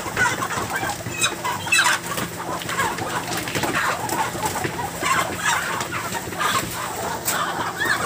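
Many broiler chickens clucking and squawking at once, a continuous clamour of short, overlapping calls from birds being caught and handled at harvest.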